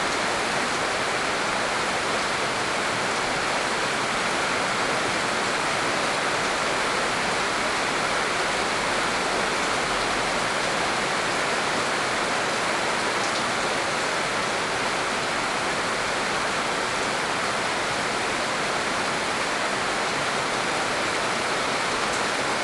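Heavy rain pouring steadily, a constant even rushing hiss.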